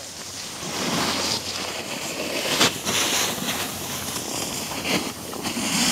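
Wind rushing over the microphone while moving down a groomed ski slope, mixed with the hiss of edges scraping across the snow; sharper scrapes stand out about two and a half seconds in and again about five seconds in.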